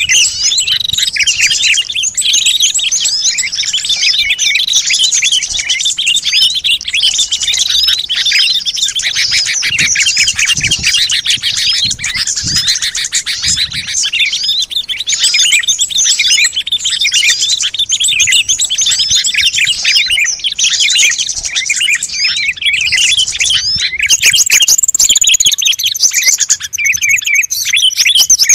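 A dense chorus of many small songbirds chirping and twittering at once, a recorded bird-lure call meant to draw wild birds in. Short rapid chirps overlap without pause, and a few seconds before the end a faster, higher-pitched trill joins in.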